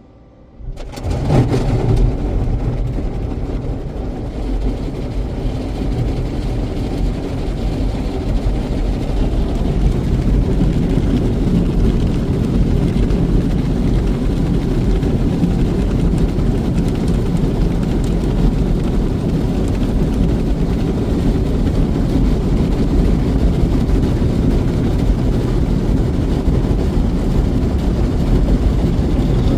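In-bay automatic car wash machinery starting abruptly about a second in, then running with a steady, loud, low rumble.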